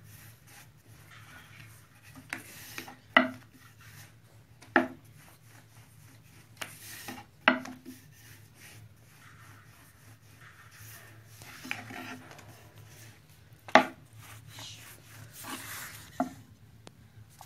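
Hands spreading a chopped-greens filling in a steel tray: soft rubbing and rustling, broken by several sharp clicks and knocks.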